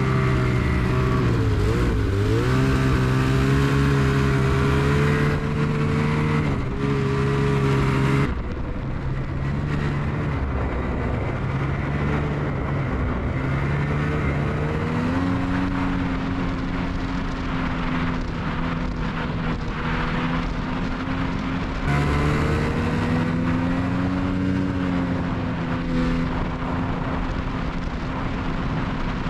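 Ski-Doo Expedition Xtreme snowmobile running along a snowy trail, heard from the rider's seat. The engine note dips and rises as the throttle changes, and the sound changes abruptly twice where shots are cut together.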